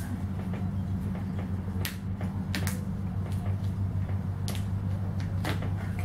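Several short clicks and crackles from a 2-liter plastic Coke bottle and its screw cap as the cap is twisted off and handled, over a steady low hum.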